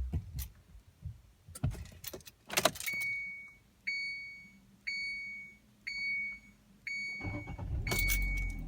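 Keys rattling and a few sharp clicks at the Kia Carens's ignition as the engine is switched off. Then the car's warning chime beeps six times, about once a second. A low rumble comes up near the end.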